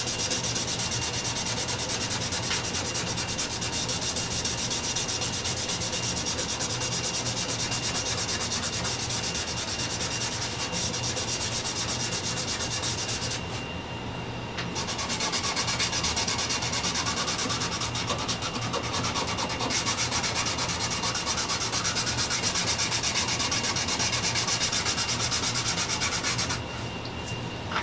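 A gloved hand rubbing dye into a bare wooden board: a steady scrubbing of glove on wood. It pauses briefly about halfway through and stops near the end, leaving only a faint steady high tone underneath.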